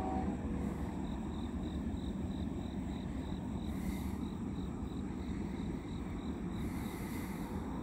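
Steady low rumble of a freight train, led by CN SD75I and SD70M-2 diesel locomotives, moving away along the track.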